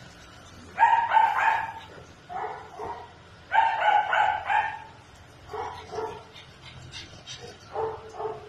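A small dog barking in quick, high-pitched runs of several barks, five bursts in all, the loudest about a second in and around four seconds in.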